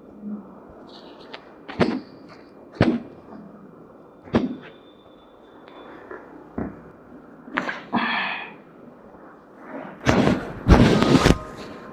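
Sharp thumps and knocks from a chiropractic adjustment: single strikes a second or more apart, then a louder, longer rough burst near the end.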